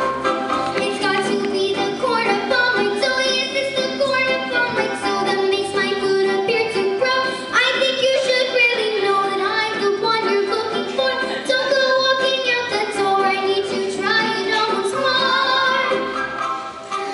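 A girl singing a song into a handheld microphone over backing music.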